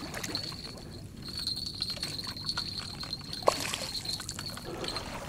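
Quiet water splashing and trickling around a hooked carp swirling at the surface next to a landing net, with a sharper splash or knock about three and a half seconds in. A steady high insect trill runs underneath from about a second in.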